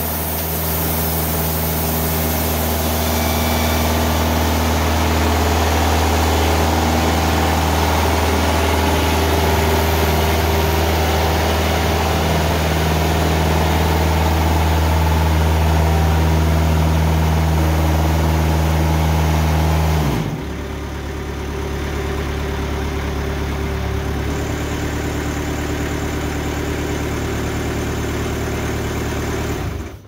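TimberKing 2000 band sawmill running at high throttle, a steady engine drone under a bright hiss as the saw head travels along an eastern red cedar log. About two-thirds of the way through, the engine drops abruptly to a lower speed and the hiss falls away, and near the end the sound cuts off suddenly.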